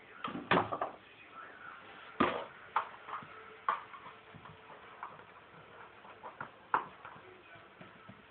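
A paper cup knocked and skittering across a tiled floor as a kitten bats it about: a string of irregular light taps and knocks, the loudest about two seconds in.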